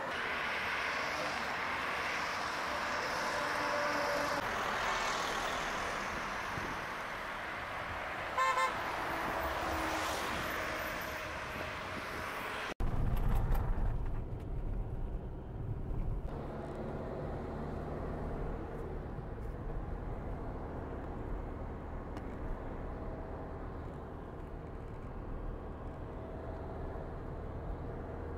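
Highway traffic passing, with a short vehicle-horn toot about eight and a half seconds in. After an abrupt cut, low road and engine rumble is heard from inside a moving car.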